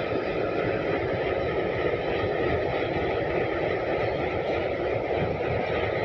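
Diesel locomotive of a goods train passing slowly, its engine running with a steady rumble, as the covered freight wagons behind it roll by.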